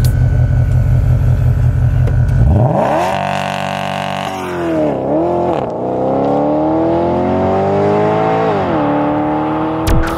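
Porsche Panamera GTS V8 engine with a deep, pulsing idle rumble that, about two and a half seconds in, revs up into hard acceleration. Its pitch climbs, falls back briefly at gear changes, climbs again and drops at a shift near the end.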